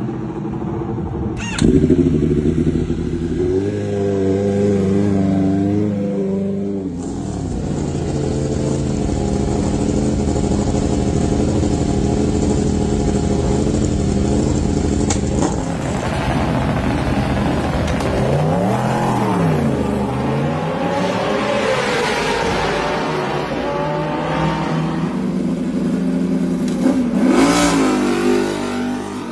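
Superbike race engines in a pit lane, one clip after another: one fires up about two seconds in and idles, others idle and are blipped so the revs swing up and down, and near the end one revs up sharply.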